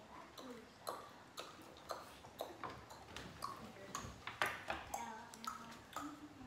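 Irregular light clinks and taps of plates, cups and glasses being handled on a table during a meal, about two or three a second, some with a short ringing tail.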